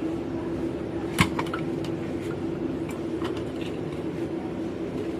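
Plastic lantern housing parts being handled and fitted together: one sharp click about a second in, followed by a few fainter clicks and taps, over a steady low hum.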